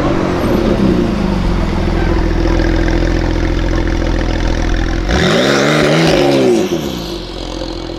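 Porsche 911 Carrera GTS flat-six engine running as the car rolls past at low speed. About five seconds in, the revs rise and then fall back over a couple of seconds as it accelerates away.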